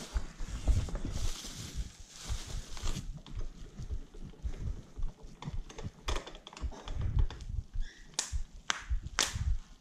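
Bubble wrap crinkling and rustling as a wrapped bicycle frame is handled, with many dull knocks of the frame and hands moving, and a few sharp clicks near the end.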